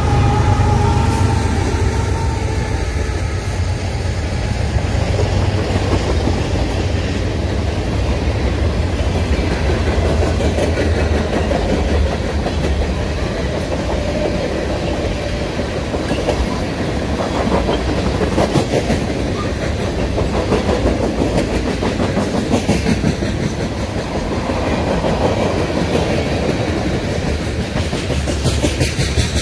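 CN freight train passing close by. A GE diesel locomotive's engine rumble and the last of its horn fade over the first seconds. Then comes a steady clickety-clack of loaded tank cars' wheels rolling over the rail joints.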